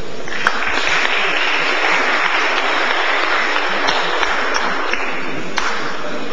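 Audience applauding, a dense steady clapping that starts about half a second in and holds at an even level.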